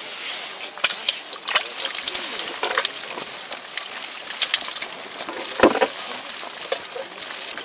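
Meltwater splashing and trickling on wet, slushy ice, with irregular small splashes and clicks as a freshly caught smelt is handled in the water by the ice hole. A louder splash or knock comes about five and a half seconds in.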